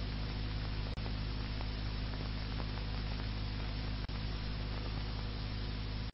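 Steady electrical hum with a layer of hiss, the recording's own background noise in a pause of the voice, broken by two tiny clicks about one second and four seconds in.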